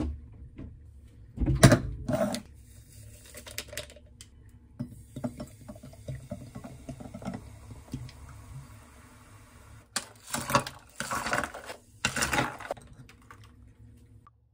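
Carbonated water poured from a plastic bottle into a glass over strawberry drink powder, foaming and fizzing with a steady hiss. A few sharp knocks come before the pour, and louder clattering bursts follow near the end.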